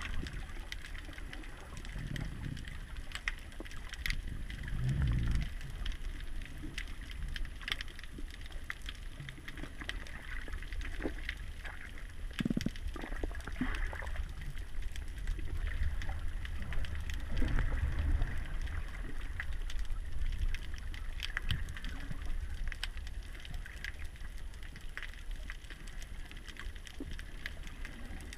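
Underwater ambience picked up by a submerged camera: a steady, muffled low rumble of moving water with a few low swells and many scattered sharp clicks and crackles.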